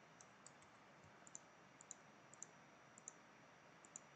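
Faint computer mouse clicks, each a quick press-and-release pair, coming about every half second to a second while objects are clicked to select them. A low steady hiss lies underneath.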